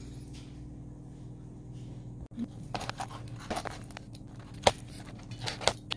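A steady low hum, then from about two seconds in a run of short crunches and clicks as a pizza cutter wheel rolls through a baked pizza crust.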